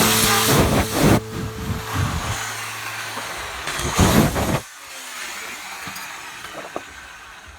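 Electric power tool running with a steady motor hum that shuts off about a second in, with a second loud surge of noise about four seconds in before the sound dies away.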